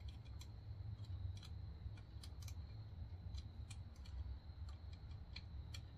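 Light, irregular metallic clicks and taps of a rocker arm holder and its bolts being handled and lifted off a Honda CB700SC cylinder head, over a low steady hum.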